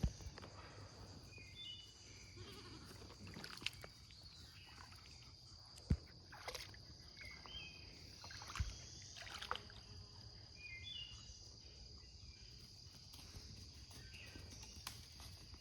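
Outdoor ambience: a steady high-pitched insect drone with short repeated bird chirps over it, and a few sharp knocks and brief splashy noises scattered through, the sharpest knock about six seconds in.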